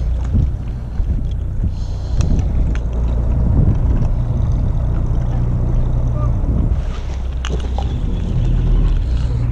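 Fishing boat's engine running steadily as a low hum, with wind buffeting the microphone. A few faint clicks stand out, one of them about seven and a half seconds in.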